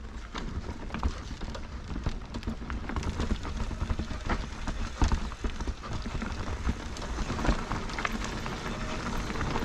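Mountain bike riding down a dirt forest trail: tyres crunching over dirt and gravel, with frequent short clattering knocks from the bike over bumps and roots.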